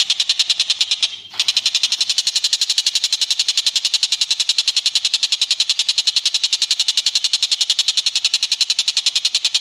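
Cililin bird singing a long, rapid, high-pitched trill of ticking notes, about a dozen a second, with a short break a little over a second in.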